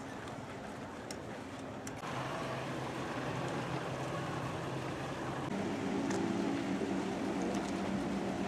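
Outboard boat motors running on the water, a steady engine hum with water noise. The sound gets louder about two seconds in, and a stronger, lower engine drone comes in a little past halfway.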